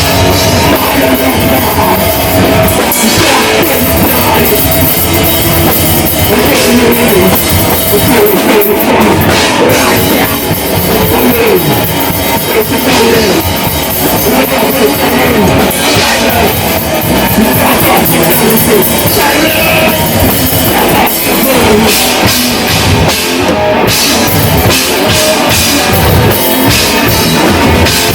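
Death metal band playing live at full volume: distorted guitars and a busy drum kit, dense and unbroken.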